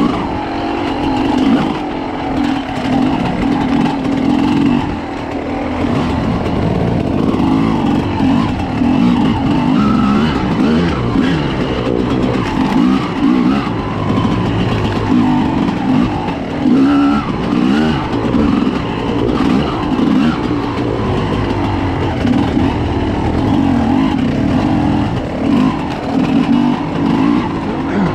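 Two-stroke enduro motorcycle ridden off-road, its engine revving up and falling back again and again as the throttle opens and closes.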